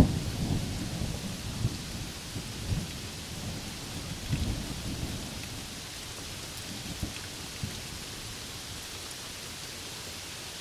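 Thunder rumbling over steady rain: a loud low crack at the start rolls on in fading grumbles and dies away about halfway through, leaving the even hiss of rainfall.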